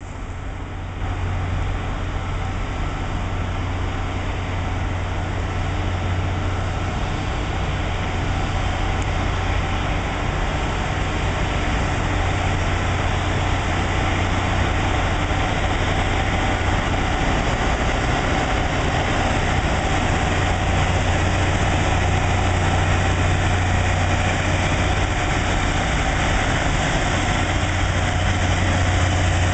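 Loram rail grinder train running along the track, a steady deep engine hum under a broad harsh mechanical noise that slowly grows louder as it draws near.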